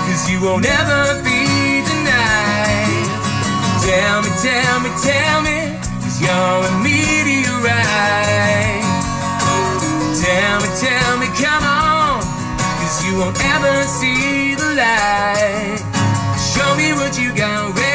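A man singing with two acoustic guitars strumming along, a live acoustic song.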